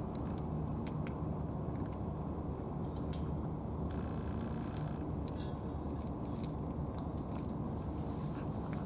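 A cat eating from a small plastic tray: faint, scattered clicks of chewing over a steady low rumble of background noise.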